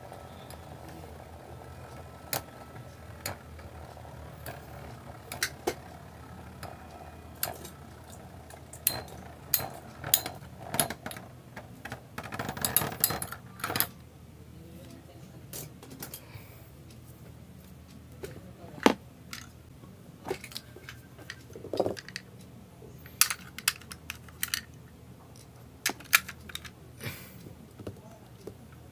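Metal Fight Beyblade tops spinning in a plastic stadium, with a faint steady hum under sharp clacks as they strike each other and the stadium wall. About halfway a burst of rattling plastic clicks as a top is grabbed out, then scattered clicks as a top is fitted to a launcher for the next battle.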